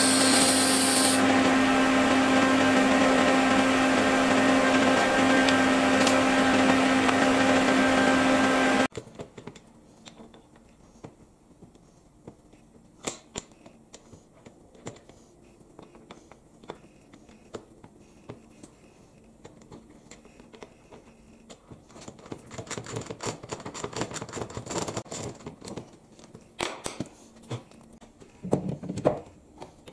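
TIG welding arc buzzing steadily while silicon bronze filler is brazed onto worn lathe chuck jaws; the buzz cuts off suddenly about nine seconds in. After it, quiet scattered metal clicks and clinks as the steel jaws are handled and fitted into a three-jaw scroll chuck, growing busier near the end.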